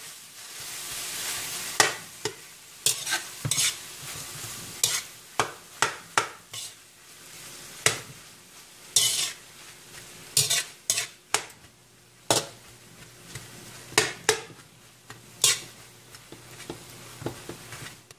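A utensil stirring corned beef in a frying pan, with irregular sharp clacks and scrapes against the pan, over a soft sizzle that is strongest in the first couple of seconds.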